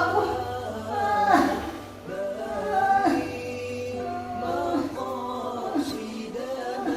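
Music with singing: a wavering melodic vocal line in phrases of about one to two seconds, over a steady low hum.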